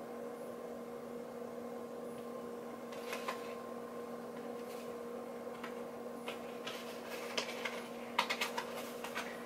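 Scattered small clicks and rustles from jewelry and its packaging being handled, more of them near the end, over a steady low hum.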